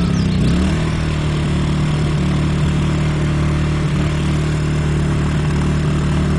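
Generac iQ2000 inverter generator's single-cylinder engine running unloaded at high speed in turbo mode, warming up just after a start. Its pitch wavers briefly near the start, then holds steady.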